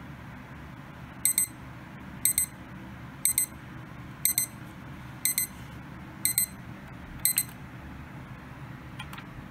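Sony Dream Machine ICF-C1iPMK2 clock radio's alarm sounding in buzzer mode: a high-pitched double beep about once a second, seven times, then it stops.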